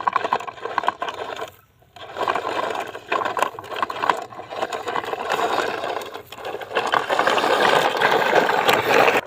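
Plastic toy truck being pushed along the ground, its wheels and body rattling and scraping in several runs with brief pauses.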